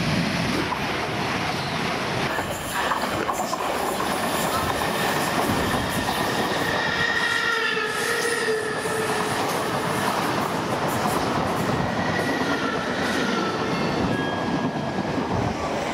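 Electric passenger train passing close by at speed: a steady, loud rush of wheels on the rails with clattering, and high squealing tones from the wheels in the middle and again near the end.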